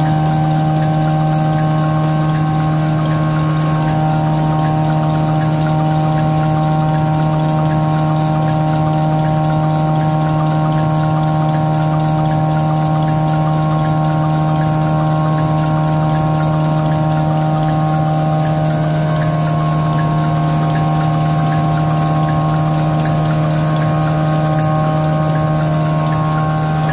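Laminated V-fold paper towel machine running steadily: a constant mechanical hum with several held tones over an even whirr.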